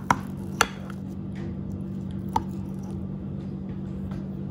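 Knife cutting through soft pudding in a glass dish: two sharp clicks of the blade on the glass in the first second and one more about two and a half seconds in, with soft squishing of the pudding between them. A steady low hum runs underneath.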